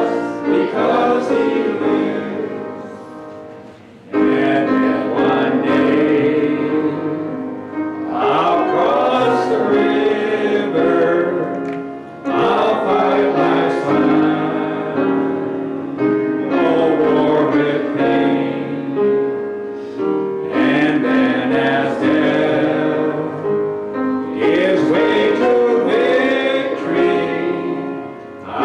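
Group of voices singing a hymn with piano accompaniment, in sung phrases of about four seconds each with held notes.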